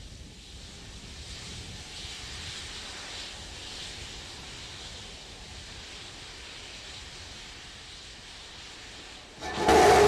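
Steady hiss while Starship SN15 vents vapour on the pad. About half a second before the end, its three Raptor methane-oxygen engines ignite with a sudden, very loud rumble at liftoff.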